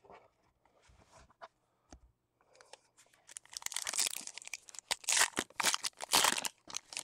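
A foil trading-card pack wrapper being torn open and crinkled, starting about three seconds in, after a few light handling clicks.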